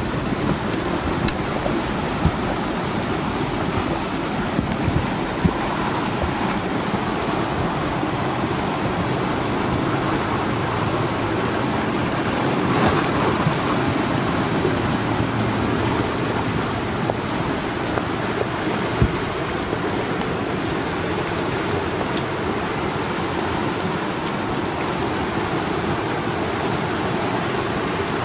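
Flash-flood debris flow of muddy water, branches and logs rushing down a desert wash: a steady, dense rush of churning water, with a few brief clicks about a second in and again near the middle.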